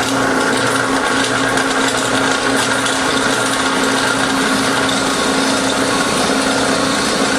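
Knee mill running steadily with an end mill in an R8 collet taking a light cut on a step pulley: an even machine hum with a steady low tone and a higher whine.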